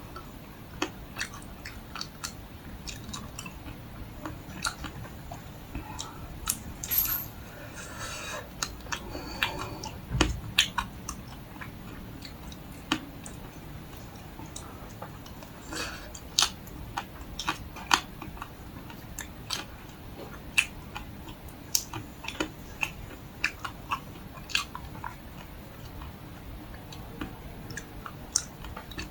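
Close-up biting and chewing of a chocolate-shelled ice cream bar: the crisp coating cracks in sharp, irregular crunches throughout, with one heavier thump about ten seconds in.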